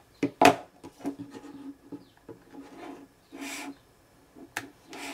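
Cables and 3.5 mm jack plugs being handled and plugged into a small portable headphone amplifier: irregular rubbing and scraping, with a few sharp clicks, one near the end.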